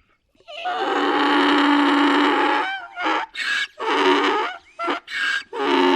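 Donkey braying: one long drawn-out call, then a run of short, rapid calls alternating in pitch.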